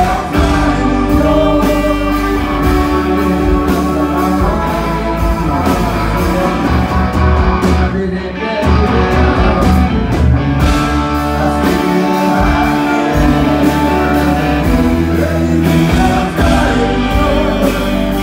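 Rock band playing live: a man singing lead over electric guitars, bass guitar, keyboards and drums, loud throughout with a brief dip about eight seconds in.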